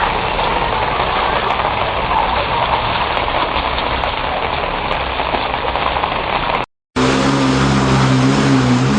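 A steady rushing noise with no clear pitch. After a brief dropout, a motor vehicle engine runs at a steady idle.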